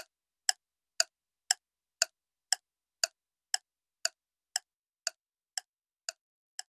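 A clock ticking steadily, about two ticks a second, getting quieter toward the end.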